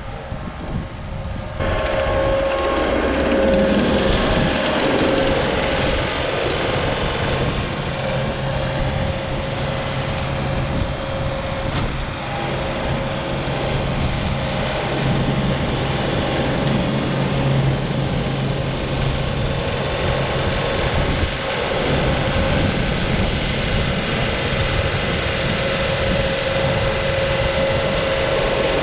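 ASV RT40 compact track loader's diesel engine running steadily under load while it drives a hydraulic Harley rake through loose dirt. The sound gets suddenly louder about a second and a half in.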